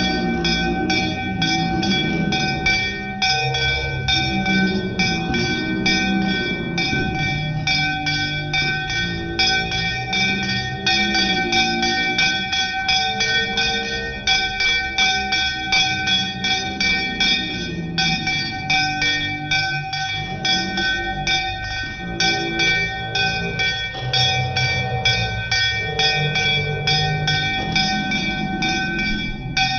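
A puja bell rung rapidly and without a break throughout aarti, a fast even clanging with a steady ring over it. Voices sing the aarti hymn underneath.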